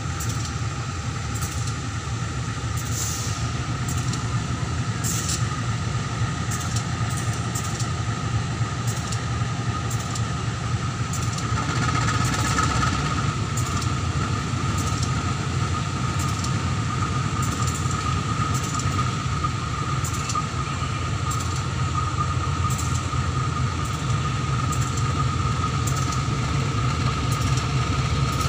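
Two diesel-electric locomotives at the head of an empty tank-car train running at low power as the train departs: a steady deep engine drone with a constant high whine over it, growing a little louder about twelve seconds in.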